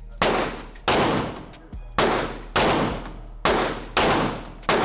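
Seven gunshots fired at a shooting range at an uneven pace, each a sharp crack followed by a short echoing tail.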